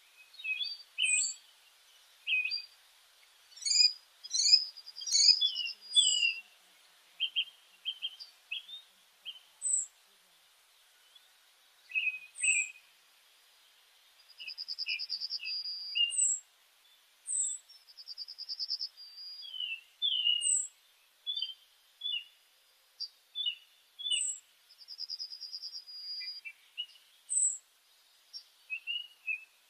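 Birdsong: several birds chirping, with short high chirps every few seconds, scattered twitters, and a few fast trills about a second long around the middle and later on.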